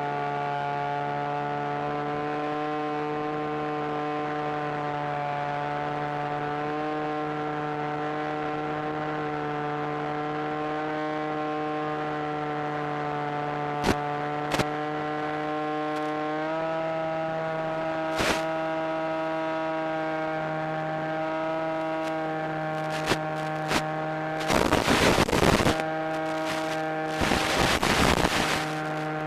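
Electric motor and propeller of an FPV aircraft, a steady droning hum carried over the analog video link. Its pitch steps up slightly about halfway through as the throttle and current rise. Several short crackles, then loud bursts of radio static near the end, as the video signal breaks up at long range.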